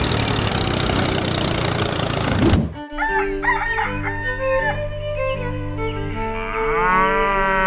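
A steady engine-like noise, the sound given to the toy tractor, cuts off about 2.7 seconds in. Then gentle music plays with bird chirps, and a rooster crows near the end.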